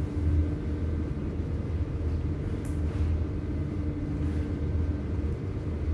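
Apheresis cell-separator machine running during stem-cell collection: a steady low hum and rumble with a faint constant tone.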